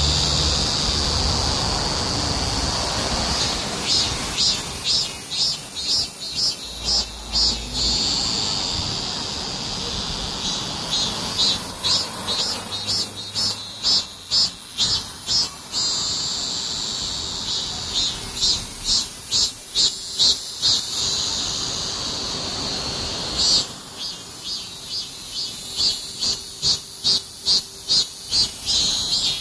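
Summer cicadas singing: a high buzzing drone broken by phrases of loud, even pulses about two a second that come and go several times.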